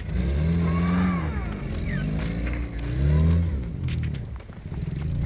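Škoda Felicia's engine revving up and down as the car skids on snow, the revs rising twice and falling away near the end, with a brief hiss near the start.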